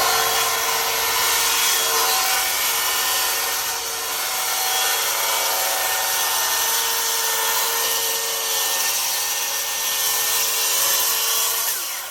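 Handheld circular saw ripping a wooden deck board lengthwise, its motor running steadily under load through a long cut, then switched off and winding down near the end.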